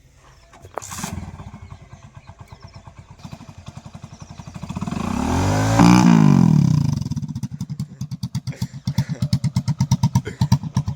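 Small single-cylinder motorcycle engine, likely the Hero Splendor's, catching about a second in and idling with an even pulse. It revs up to its loudest around the middle and drops back to idle.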